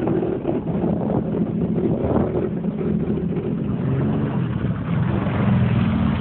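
2012 Sea-Doo GTI 130 personal watercraft engine, a Rotax three-cylinder four-stroke, running at a steady speed.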